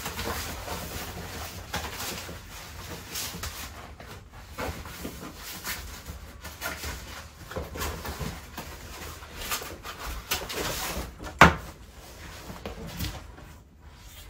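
Clothes and a garment bag being handled and rustled, with scattered small knocks and clicks and one sharp knock about eleven seconds in, the loudest sound.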